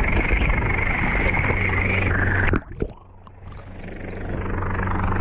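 Rescue boat under way: a steady engine drone under loud wind and water noise. A little over halfway through it drops away suddenly, with a couple of knocks, to a duller, quieter sound that slowly builds again.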